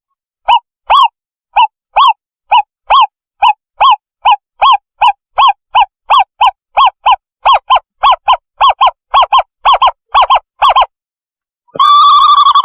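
Owlet call recording played as a decoy lure: a run of short, clear hoots that speeds up from about two to about four a second, then stops. Near the end a longer wavering call begins, followed by quicker notes.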